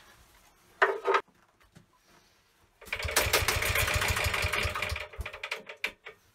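Lombardini single-cylinder air-cooled diesel being started by hand: it turns over briskly for about two seconds with fast, even pulses, then slows through a few separate ticks and stops without keeping running. A short sound comes about a second in.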